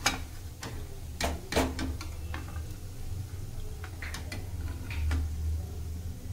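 A perforated metal skimmer clinking and knocking against a metal kadai several times, sharp separate taps with the loudest about a second and a half in, as fried dumplings are lifted out of the oil and drained. A steady low hum runs underneath.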